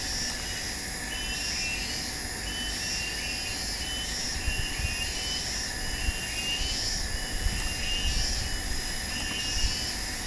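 Background ambience: a steady hiss with a short high chirp repeating about every second and a half, and a faint low rumble now and then.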